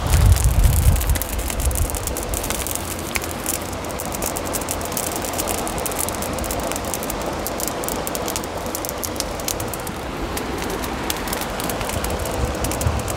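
Small fire of dry grass and resin-soaked pine fatwood burning and crackling, with many fine pops over a steady hiss; the fatwood has caught and is burning well. A low rumble sounds in the first second or so.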